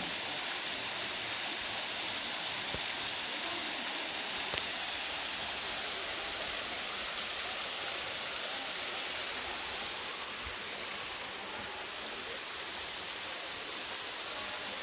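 Small creek waterfall running low after little rain: a steady rush of falling, splashing water, easing slightly in the second half.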